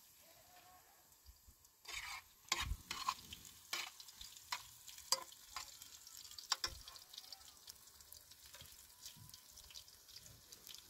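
A utensil clinking and scraping against a frying pan on a small gas burner as food is stirred, over a faint frying sizzle. The sharp clinks come in a cluster through the first half or so, then thin out.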